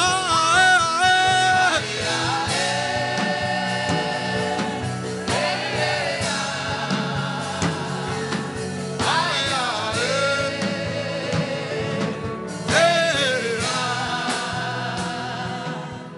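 Gospel worship singing: voices chanting in long phrases over steady accompaniment, with new phrases starting about every four seconds and the sound fading near the end.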